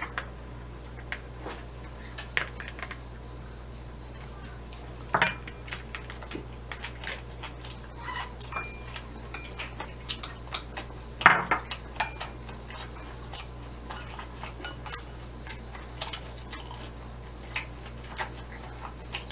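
Chopsticks tapping and clinking against a small dish as a piece of sushi is picked up and dipped, in scattered light clicks. The loudest clicks come about five seconds in and about eleven seconds in.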